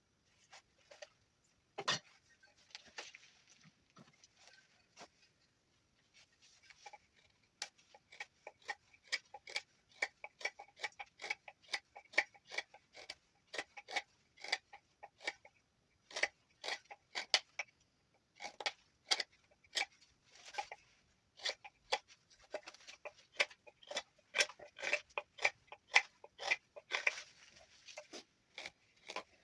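Knife whittling juniper wood: quick, short cutting and scraping strokes, about two to three a second, with a pause near the start before a steady run of cuts.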